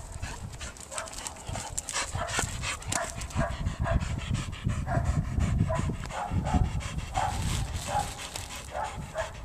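A dog panting hard, about two quick breaths a second, over crackling of dry leaf litter and twigs.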